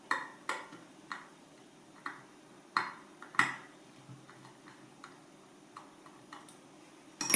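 Irregular small clicks and taps of hand work on the grinder's wiring, about a dozen, as a loose wire is refitted to its terminal. One louder sharp click comes near the end.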